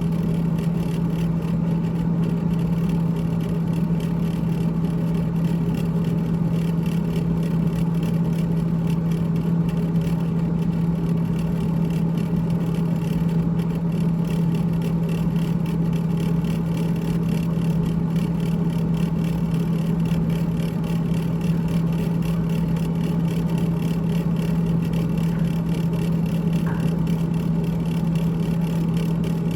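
GE GTH18XCTZRBB refrigerator running with its evaporator fan rattling, a steady hum with a rattle. The rattle comes from the evaporator fan.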